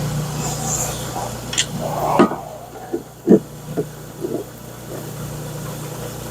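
Lapidary saw motor running with a steady low hum, while several hard knocks and clunks come between about one and a half and four and a half seconds in, the loudest two about a second apart.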